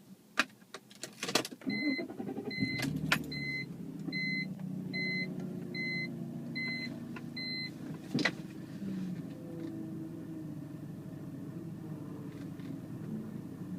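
A few clicks, then the 2002 BMW 330Ci's straight-six starts and settles into an idle while a warning chime beeps eight times, evenly spaced. A sharp click comes about eight seconds in, then the engine idles on with a strange, uneven note that the owner says doesn't sound good.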